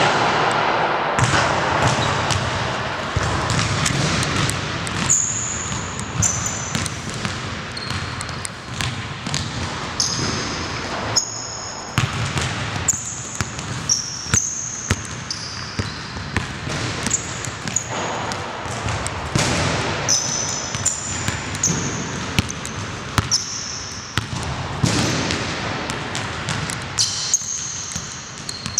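A basketball is dribbled on a hardwood gym floor, with repeated sharp bounces. Sneakers squeak on the court in short high chirps throughout.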